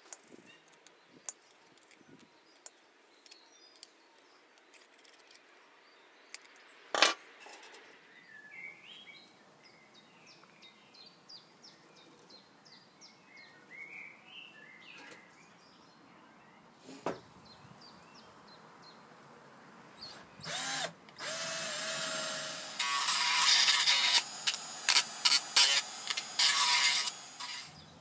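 Tin snips clicking as they cut the thin tin of an olive oil can, with one sharp snap about seven seconds in, and birds chirping faintly. In the last third an electric drill spins up and drills into the tin in a run of short, loud bursts.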